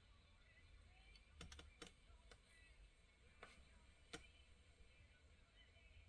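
Faint, scattered light clicks and taps, about six of them, of a small die-cast toy car and its plastic packaging being handled.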